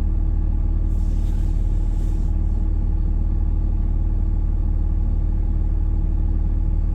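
Steady low rumble of a vehicle's engine and drivetrain, heard from inside the cabin, with a few faint steady hum tones over it.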